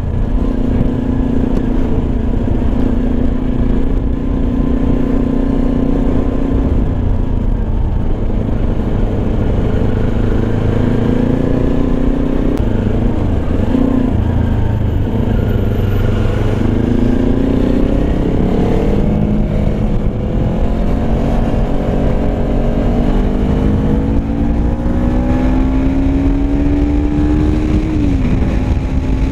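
Kawasaki Ninja 250R's parallel-twin engine running on the road. Its note holds steady for several seconds, then from about halfway climbs as the bike accelerates. A long, slow rise drops sharply near the end, as at an upshift.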